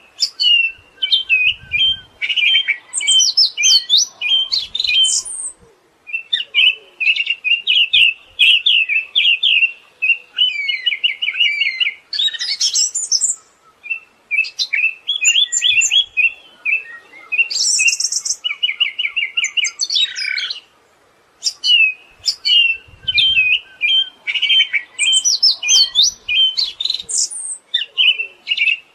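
Siberian thrush singing: long phrases of rapid, high chattering and trilled notes, with a couple of short breaks between phrases.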